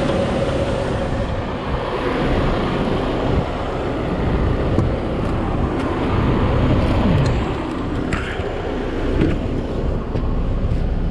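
Semi truck's diesel engine idling steadily, heard from beside the cab, with a few short knocks about eight and nine seconds in as the cab door is opened and someone climbs in.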